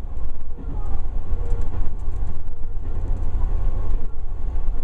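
JR 383 series electric express train running along the track, heard from inside the front car: a steady low rumble of wheels and running gear, with faint whining tones drifting in pitch.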